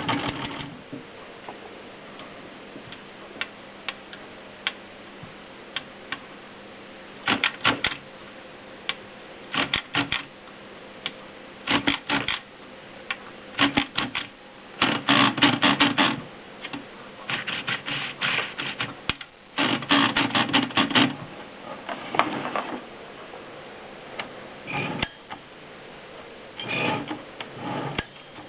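Adler Tippa portable manual typewriter being typed on: a few scattered key strikes, then irregular runs of rapid keystrokes separated by short pauses.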